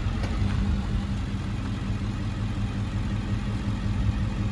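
Vehicle engine idling steadily with an even low drone.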